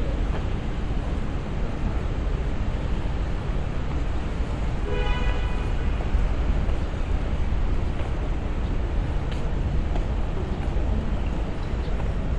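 City street background noise: a steady low rumble, with a short high-pitched call or tone about five seconds in.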